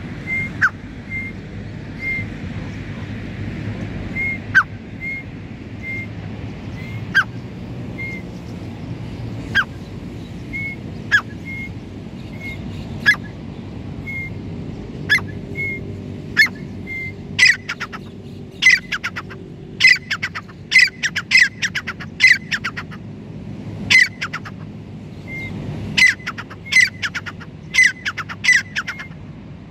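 Grey francolin calling: loud, sharp notes that sweep quickly downward in pitch. They come singly about every two seconds at first, then quicken into rapid runs of two or three notes from about halfway through. Faint short high chirps repeat underneath.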